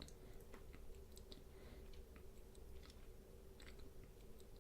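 Near silence: faint room hum with scattered soft clicks of fingertip taps and handling on a smartphone's touchscreen.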